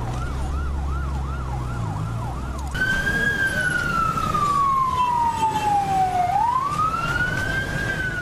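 Emergency vehicle sirens. First comes a fast warbling yelp, about two and a half cycles a second. About three seconds in, after a cut, a slow wail falls steadily in pitch and then rises again near the end, over a low rumble.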